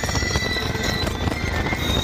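Roller coaster train rattling and clattering along its track, with music playing over it.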